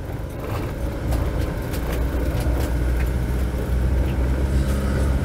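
Motorhome engine and road noise heard from inside the cab while driving slowly, a low rumble that grows louder over the first two seconds, with a few light clicks.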